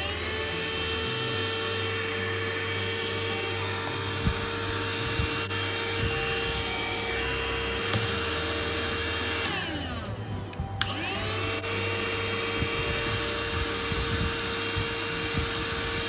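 Handheld 12 V car vacuum cleaner running on mains power through a cigarette lighter socket adapter: a steady motor whine. About ten seconds in it winds down as it is switched off, then with a click spins back up and runs steadily again.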